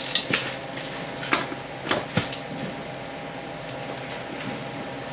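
A few sharp metallic clicks and clinks from a hand wrench being worked on the front axle hub nut, over a steady low hum.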